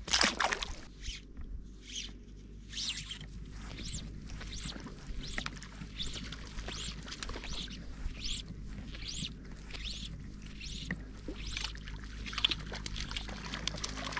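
A splash of water as a brook trout is let go from the hand, then a run of soft swishing water sounds, about two a second.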